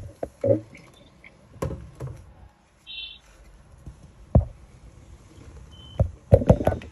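Several knocks and clatters from handling an electric hand mixer and a plastic mixing bowl while flour is tipped in, with a quick cluster of knocks near the end. A short high chirp about three seconds in.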